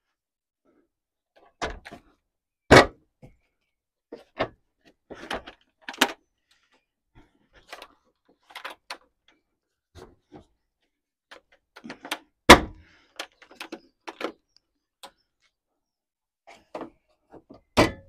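Scattered knocks, clicks and clunks of a car's front bumper being pushed and lined up onto the front of the body by hand, with two louder clunks, one about three seconds in and one about twelve seconds in.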